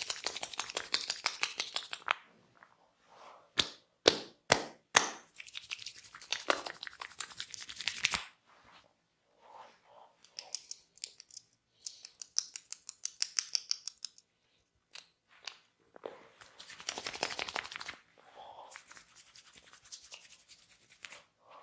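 Barber's hands massaging at close range: rapid crackly scratching and rubbing in bursts, with four sharp hits in quick succession about four seconds in.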